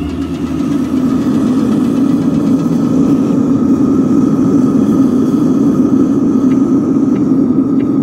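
Gas burner firing steadily into a homemade gas-canister furnace, the flame swirling inside the chamber as the furnace warms up.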